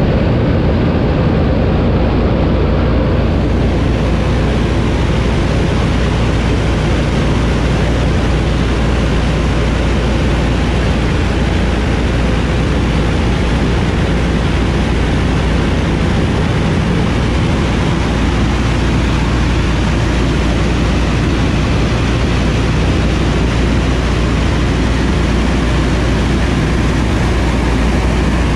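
The PBY-5A Canso's Pratt & Whitney R-1830 Twin Wasp radial engines droning steadily in cruise flight, heard from inside the fuselage with air rushing past the open blister. The hiss of the air grows stronger about three seconds in.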